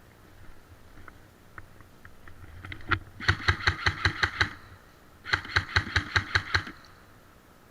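Airsoft gun firing two bursts of rapid shots, about eight a second, each burst lasting a little over a second. A few single shots come just before the first burst.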